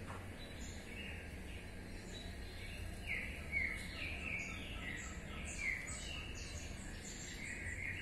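Small birds chirping, a quick run of short falling chirps starting about three seconds in, over a steady low rumble.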